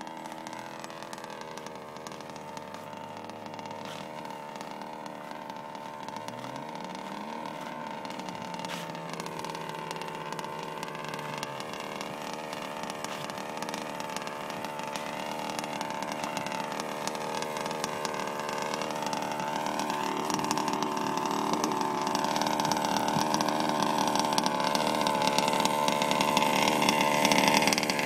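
Small two-stroke 30.5 cc petrol engine of an HPI Baja 5T 1/5-scale RC truck running at a steady, high pitch, growing steadily louder as the truck comes closer.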